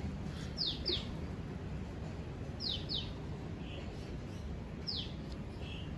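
A bird calling repeatedly: quick pairs of high falling whistles about every two seconds, three times, over steady low background noise.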